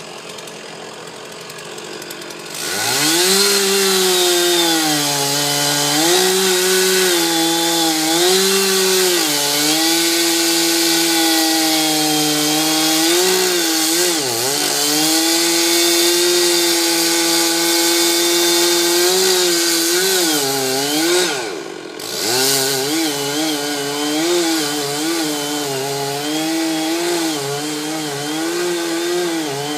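Two-stroke chainsaw revved up about two and a half seconds in and held at high speed, its pitch wavering as it cuts wood. Its speed dips sharply twice, near the middle and about two-thirds through, before it runs on.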